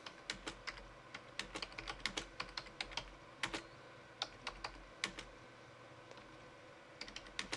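Computer keyboard being typed on, quick irregular key clicks, a pause of nearly two seconds past the middle, then typing resumes near the end.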